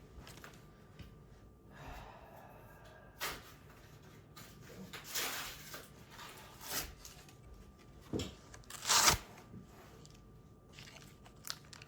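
Crinkling and rustling of trading-card packaging and cards being handled, in scattered short bursts, with the loudest crackle about nine seconds in.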